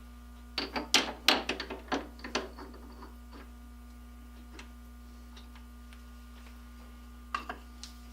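Quick run of clicks and clinks from tools and parts being handled at a lathe while the work is set up between centres: about a dozen in the first two seconds, then two or three more near the end, over a steady low hum.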